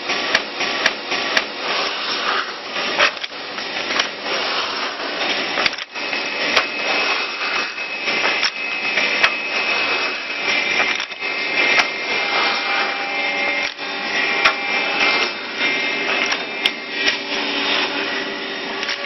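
Three-angle woodworking drilling machine for chair legs running: a steady motor whine under irregular clicks and knocks.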